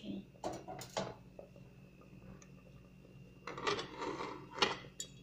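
Aluminium pressure cooker lid being handled and set onto the pot: a few light metal clicks in the first second, then a run of clinking and scraping metal on metal from about three and a half seconds in.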